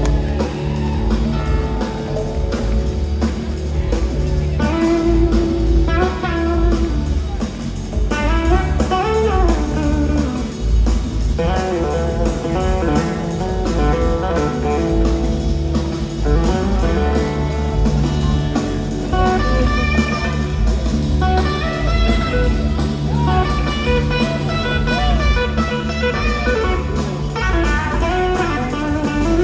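Live blues-rock jam: an electric slide guitar plays a lead of gliding, bending notes over bass guitar and drums.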